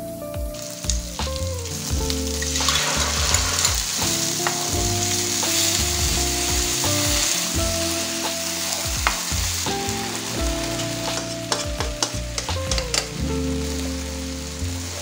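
Meatballs sizzling in a frying pan while a wooden spatula stirs and scrapes through them. The sizzle grows much louder about two and a half seconds in and eases a little after about ten seconds.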